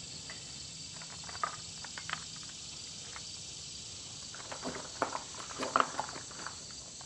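Steady high-pitched chorus of insects, with a few short clicks and knocks of small objects being handled, bunched near the end.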